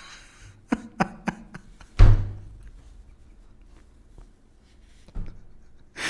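A few light clicks, then one heavy thump about two seconds in with a short low rumble after it, and a softer knock near the end.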